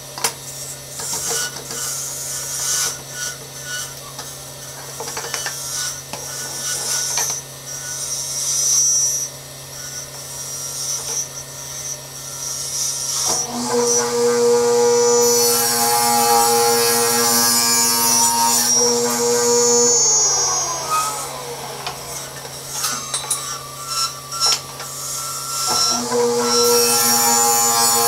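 Table saw running with a steady motor hum, its blade whining louder as it cuts through wooden stock fed with the miter gauge, once for several seconds about halfway through and again near the end.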